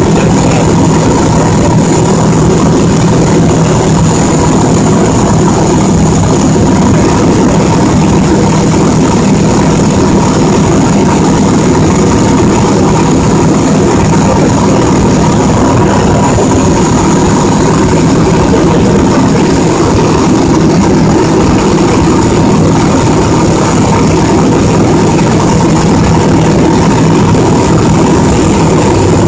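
Light aircraft's engine and propeller running steadily in flight, heard loud from inside the cockpit.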